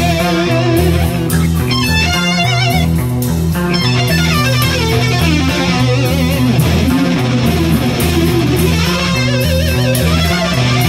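Distorted electric lead guitar playing a metal solo over rhythm guitar and bass. Its held notes are bent with wide vibrato about two seconds in and again near the end.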